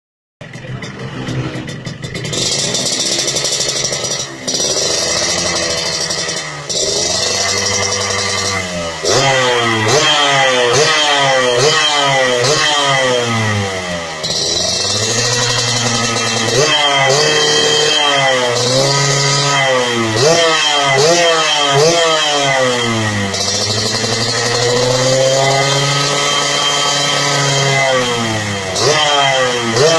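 Yamaha RX-King's single-cylinder two-stroke engine breathing through an aftermarket 'lobster' exhaust, running fairly steadily at first, then revved over and over in quick throttle blips from about nine seconds in, with one slower rev up and down later on. The exhaust note is sold as crisp ('garing').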